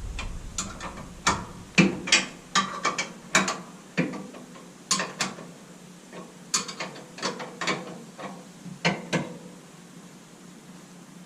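Irregular sharp metallic clicks and clanks of metal parts being handled, about twenty of them spread over nine seconds, stopping near the end. A low rumble dies away in the first second.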